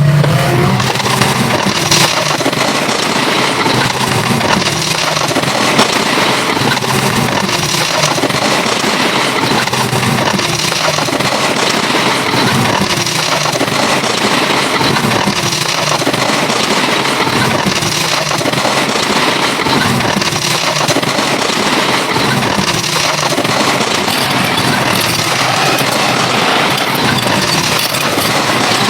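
Heavy construction machinery engines running continuously, a dense mechanical din without pauses.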